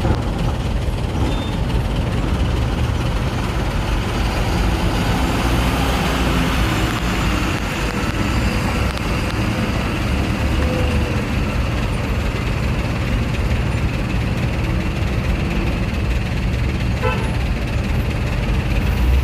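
Heavy trucks' diesel engines running as they drive slowly past close by, a steady low rumble with a broad hiss over it.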